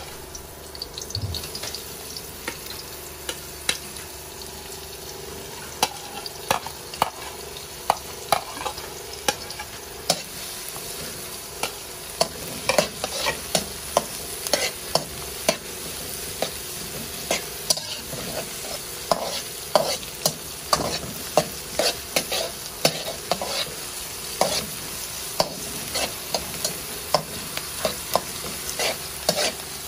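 Chopped onion, red bell pepper and garlic sautéing in oil in a metal wok: a steady sizzle with repeated clicks and scrapes of a slotted spatula stirring against the pan. The stirring strokes come more often from about twelve seconds in.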